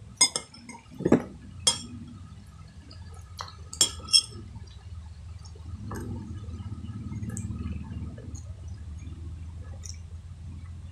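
A metal spoon clinking against dishware about five times in the first four seconds, then close-up chewing of a mouthful of rice.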